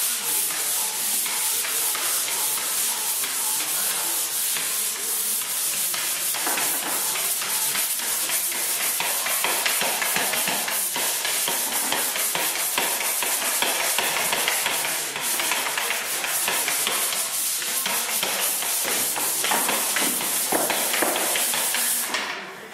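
Drywall pole sander with 120-grit sandpaper rasping back and forth over dried joint compound in continuous strokes. The sanding stops near the end.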